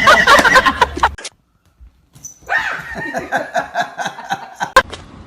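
A dog vocalising in a quick run of short, pitched sounds, after a brief silence about a second in, with a sharp click near the end.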